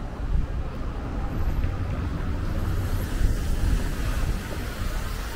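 Outdoor city street ambience: a steady low rumble with a haze of background noise and no clear voices.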